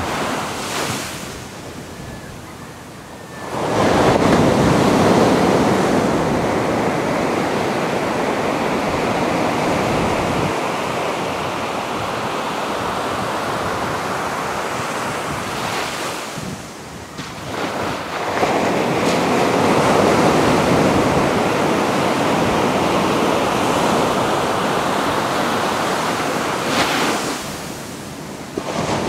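Ocean surf: waves breaking on the shore and washing back, swelling sharply twice, about four seconds in and again some fourteen seconds later, with quieter lulls between.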